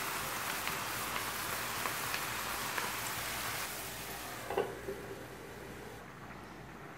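Minced meat and chopped onions sizzling and crackling in a frying pan, with small pops. About four and a half seconds in, a metal lid clanks down onto the pan and the sizzle becomes quieter and muffled.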